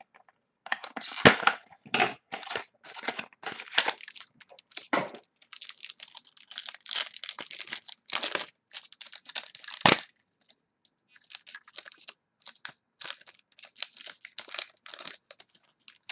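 Trading card pack wrapper being torn open and crinkled by hand: irregular crackling rustles, with sharper snaps about a second in and again about ten seconds in.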